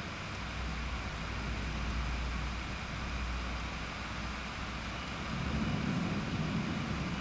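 Distant thunder rumbling low and rolling, swelling again about five and a half seconds in, over a steady hiss.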